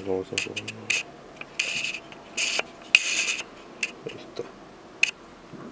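Small metal tool scraping and clicking on a pen tattoo machine's motor hub as its set screw is worked loose: several short raspy scrapes of under half a second, with scattered light clicks between them.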